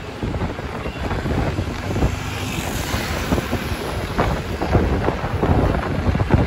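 Wind buffeting the microphone of a phone filming from a moving two-wheeler: a loud, continuous rush with irregular low gusts, over the noise of the vehicle and road traffic.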